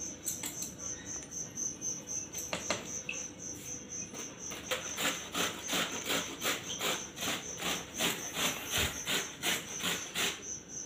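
White radish (mooli) being grated on a handheld metal grater: repeated rasping strokes, sparse at first, then quicker and steadier at about three a second from about halfway through. A high-pitched chirp pulsing about four times a second continues behind it.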